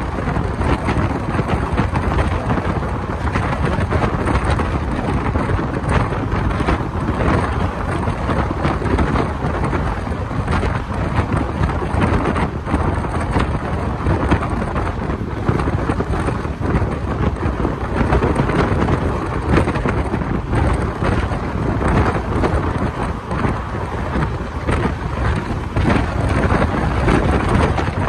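A moving passenger train heard from an open coach window: steady, loud running noise of wheels on the rails, mixed with wind buffeting the microphone.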